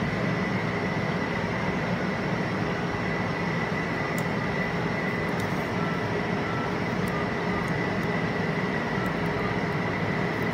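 Steady fan-like mechanical hum with a faint high-pitched whine, and a few faint ticks.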